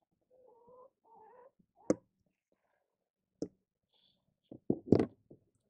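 A few sharp knocks and taps, the loudest a quick cluster about five seconds in. Two faint, short pitched sounds come in the first second and a half.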